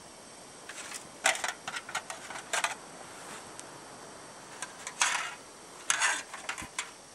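A plastic spoon scraping and clicking against the inside of a small GSI Minimalist cook pot as the food is stirred, then the thin aluminium windscreen crinkling and rattling as it is set around the pot and stove. The sounds come in short, uneven clusters, the loudest about a second in and again in the second half.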